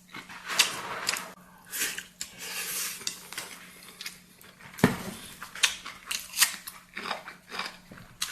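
Close-up eating sounds: chewing and biting a mouthful of rice with soy-braised egg, with utensils clicking against a bowl and one sharp clack about five seconds in.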